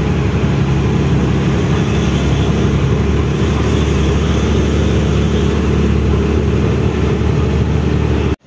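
Steady running noise of a loaded twelve-wheel diesel truck on the move, its engine and road noise, cutting off abruptly near the end.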